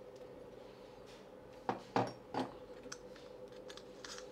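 Three light knocks and clicks close together, a little under two seconds in, from the metal parts of a stainless-steel doorknob lockset being handled as the knob is taken off its spindle. A faint steady hum runs underneath.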